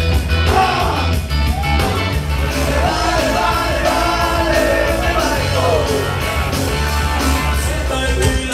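Dance music with a singer's voice over a steady, heavy bass beat.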